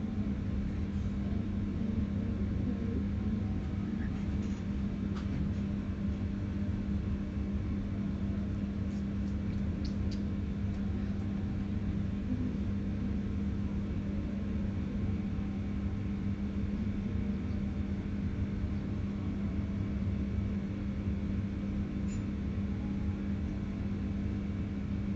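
Steady low mechanical hum and rumble with a constant tone, like a motor running without pause.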